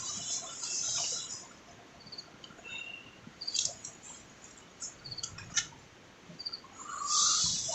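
Insects chirping in short, high pulsed bursts, with scattered clicks and rustling; a louder rustle comes near the end.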